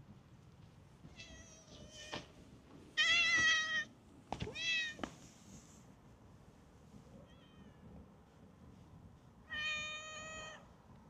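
A stray cat meowing five times, three of the calls loud and drawn out, the middle one rising and falling in pitch, with a long pause before the last loud meow near the end.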